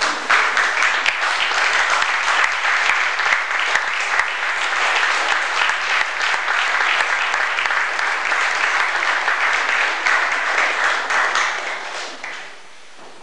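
Audience applauding steadily for a graduate, dying away near the end.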